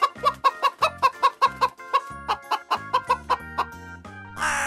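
Chickens clucking in a quick, steady run of short clucks, about five a second. Near the end a single harsh crow's caw cuts in.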